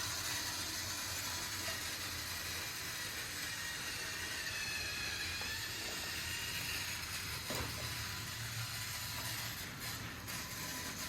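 Battery-powered Plarail toy train running on plastic track, its small motor and gears giving a steady whirr with a whine that wavers in pitch, and a single click about seven and a half seconds in.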